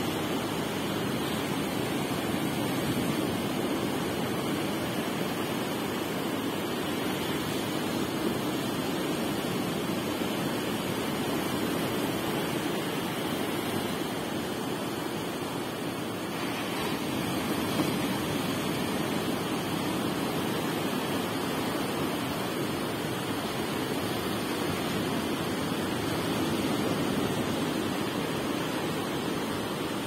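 Baltic Sea surf: small waves breaking and washing up a sandy beach in a steady rush of foam that swells and eases a little.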